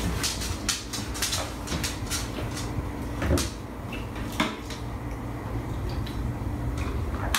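A run of light clicks and knocks, coming quickly in the first two seconds, with two louder knocks about three and four and a half seconds in, over a steady low hum.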